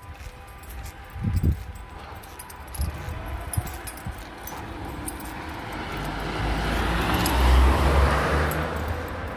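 A motor vehicle driving past on the street, its engine rumble and tyre noise swelling to a peak near the end. A couple of dull thumps about a second in.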